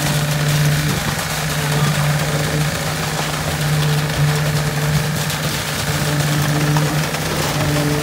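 Small petrol engine of a concrete vibrator running steadily at working speed, a constant low hum with a noisy rattle over it.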